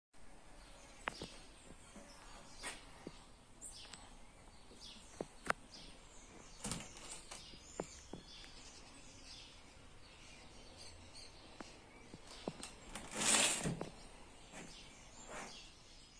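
Faint, scattered bird chirps: many short, high, downward-sliding notes. Several light clicks come between them, and a brief louder rustle or scrape sounds near the end.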